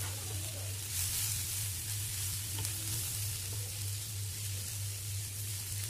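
Broken wheat, dal and vegetables sizzling in hot oil in a frying pan while being stirred and tossed with a spatula, over a steady low hum.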